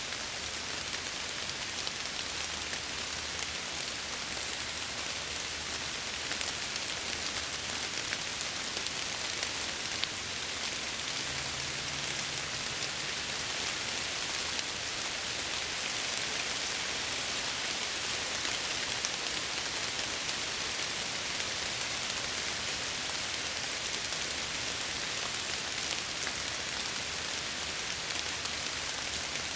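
Steady rain falling against window glass, an even hiss without breaks.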